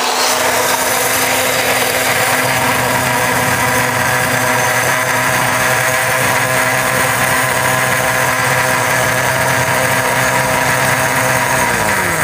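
Countertop blender motor running steadily at high speed, whirling a watery mix of tomatoes and cheese in the jar. Near the end its pitch drops as the motor winds down.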